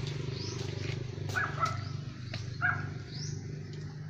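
A steady low motor hum, with four short animal calls over it.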